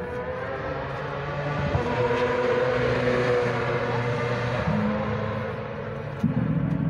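A motorcycle engine passes, its note swelling and gliding in pitch, loudest about two seconds in, then fading. Near the end a louder, low steady engine note cuts in suddenly close by.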